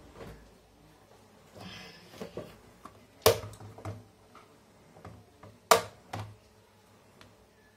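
Clear plastic parts box being picked up and handled, with a light rustle of its contents and two sharp plastic clacks a couple of seconds apart, the second followed closely by a lighter one.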